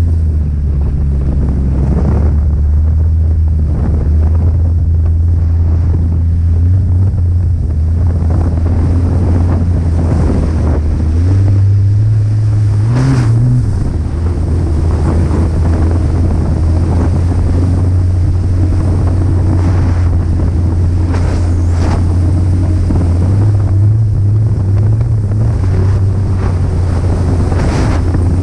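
Snowmobile engine running at speed with a steady low drone. Its pitch rises briefly about eleven seconds in, then falls back, and wavers again later. Wind buffets the microphone throughout.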